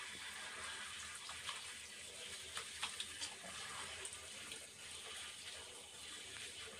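Faint running shower water falling on a wet Shih Tzu as hands rub and rinse its soapy fur, with a few soft ticks and splashes.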